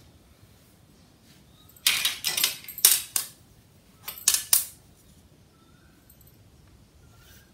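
A long ruler being handled on fabric over a stone floor: two bursts of clattering and scraping, one about two seconds in and a shorter one about four seconds in.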